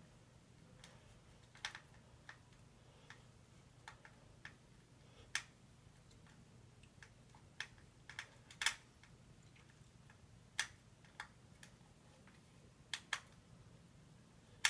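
Small screwdriver and hard plastic toy clicking and tapping as a tight battery-cover screw on a Tomy Trackmaster toy engine is worked loose: about a dozen faint, unevenly spaced clicks.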